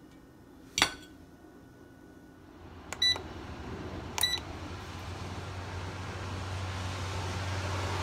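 A sharp clunk as the basket drawer of a GoWISE USA air fryer shuts, then two short beeps from its touch control panel as the temperature and timer are set. The air fryer's fan then starts up, a steady hum with a rush of air that grows louder.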